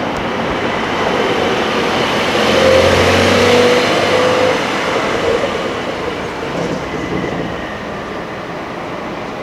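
A vehicle passing by: a broad rush of engine and road noise that swells to its loudest about three seconds in, then fades away.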